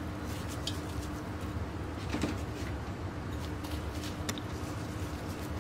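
Quiet kitchen room tone: a steady low hum with a few faint, soft ticks of handling.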